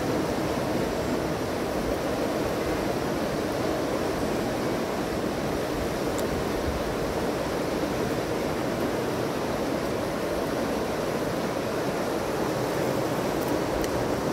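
Fast-flowing river rushing over rapids: a steady, unbroken wash of water noise.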